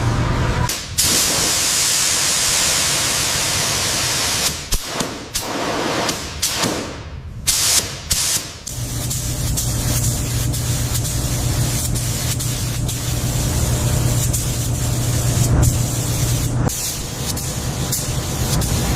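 Workshop tool noise in quick edited cuts. A strong air hiss like a paint spray gun runs for a few seconds, then a few short bursts, then a steady machine hum with noise.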